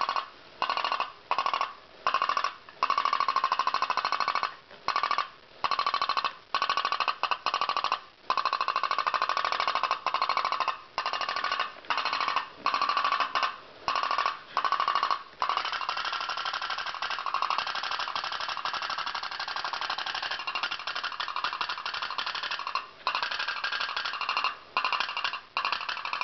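Diaphragm-type pop-pop boat engine running with a very loud, rapid popping rattle. It cuts out briefly again and again in the first half and near the end, and runs unbroken in between.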